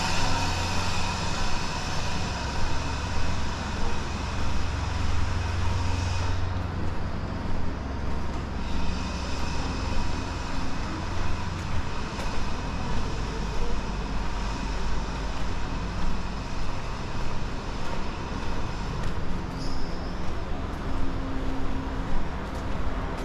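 Street traffic: steady noise of passing motor vehicles with a low engine hum.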